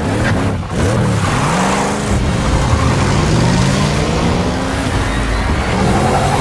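Batmobile engine sound effect: a loud engine revving, its pitch rising and falling several times, with a brief drop-off about half a second in.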